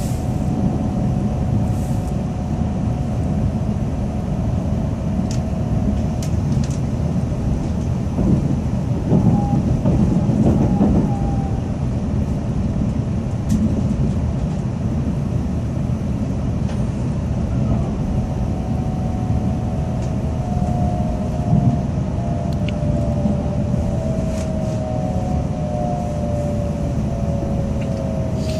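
Tokaido Shinkansen train running, heard from inside the passenger cabin: a steady low rumble with a few faint ticks. A high whine of two close tones fades out about six seconds in, comes back later and falls slightly in pitch near the end.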